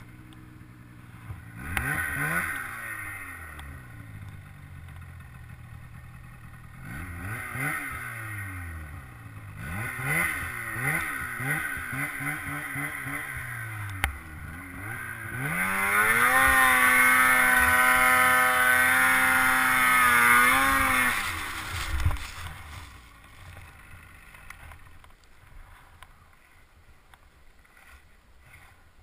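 Snowmobile's 700 engine revving up and down again and again while sidehilling in deep powder, then held at high revs for about five seconds. The revs fall away with a sharp knock, and after that the engine is only faintly heard.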